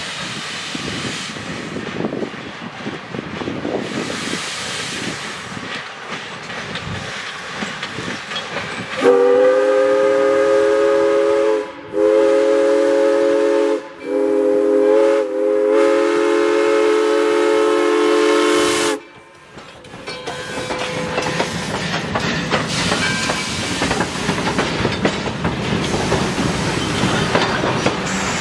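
Steam-hauled passenger train rolling past, wheels clattering over the rail joints. About nine seconds in, the locomotive's several-toned steam whistle blows four blasts, long, long, short, long: the grade-crossing signal. The train then keeps rolling by.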